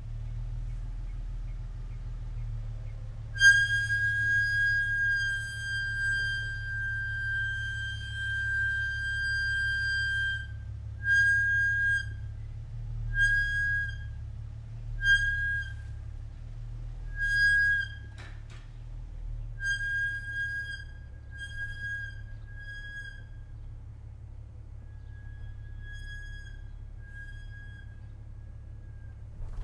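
2023 Toyota Tundra's brakes squealing in a high, steady, whistle-like tone. One long squeal lasts about seven seconds, then comes a string of shorter squeals of about a second each, over a low rumble. The squeal is terrible, and dealerships have no fix for it yet.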